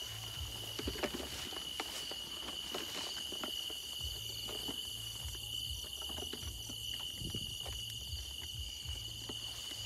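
Chorus of night insects: a steady high-pitched trill with several faster pulsing layers above it. Under it, footsteps and dry corn leaves rustle and crackle in short scattered bursts as someone pushes through the plants.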